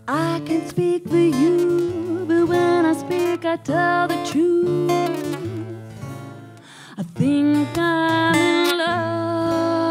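A woman singing a slow melody over strummed acoustic guitar, backed by cello, bass and cajon. The voice pauses briefly about six seconds in, then comes back louder.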